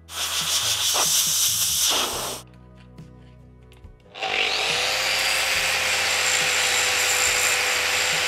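Angle grinder cutting a steel BMW differential output flange held in a vise, shortening it by 4 mm: about two seconds of grinding, a short pause, then the grinder spins up with a quick rising whine that settles to a steady pitch and grinds on.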